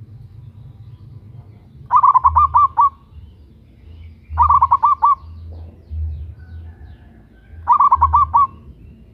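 Zebra dove (perkutut) calling three times, each call a quick run of five or six bubbling cooing notes lasting under a second.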